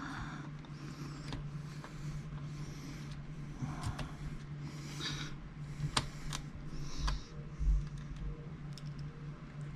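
Small metallic clicks and scrapes of a screwdriver and tiny laptop screws being removed from the screen assembly, with the worker's heavy breathing between them and a few dull knocks near the end, over a steady low hum.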